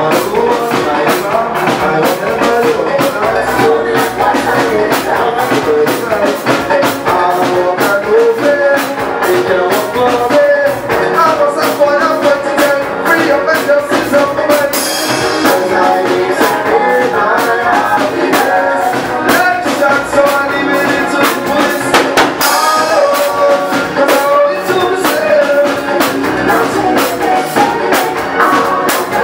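Live soca band playing: a drum kit keeping a quick steady beat under pitched instruments carrying the melody.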